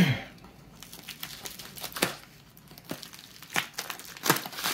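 A plastic shipping mailer crinkling and rustling as it is handled and cut open with scissors, loudest at the start, then a few short sharp crackles.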